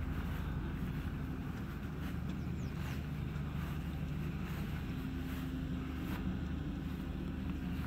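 Steady low hum of an engine running at a constant idle, with wind on the microphone.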